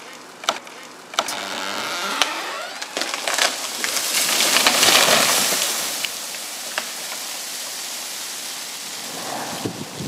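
A tree coming down through the canopy: sharp snaps of breaking wood, then a swelling rush and crackle of branches breaking that is loudest about five seconds in. After that comes a steady patter of twigs and leaves raining down.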